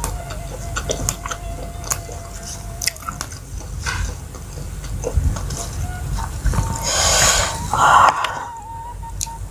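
Close-up eating sounds: basil leaves torn and rice picked up by hand, with chewing and many small clicks, and a louder rustling burst about seven seconds in. Faint bamboo flute music plays underneath.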